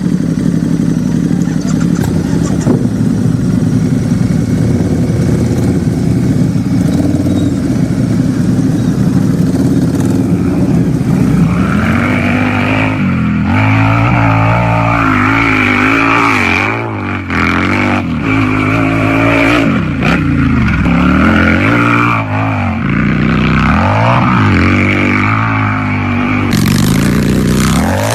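Harley-Davidson V-twin motorcycle engine running at a steady idle for about ten seconds, then revved again and again, its pitch rising and falling with each twist of the throttle.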